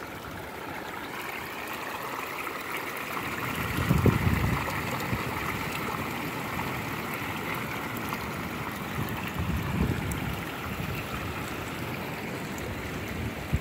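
Water splashing steadily as it pours through a stacked-tray Gold Cube gold concentrator and spills into a plastic bucket. Two low rumbles of wind on the microphone come about four and ten seconds in.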